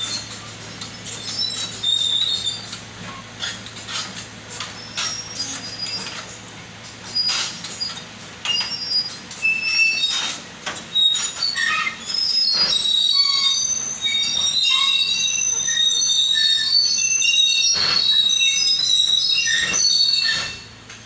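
Excavator at work: a dense run of short, high-pitched metal squeals and scattered clanks over a steady low engine drone. The squealing thickens about halfway through and cuts off near the end.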